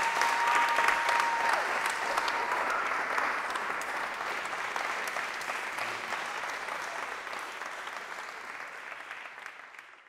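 Audience applauding, steadily fading out to nothing by the end.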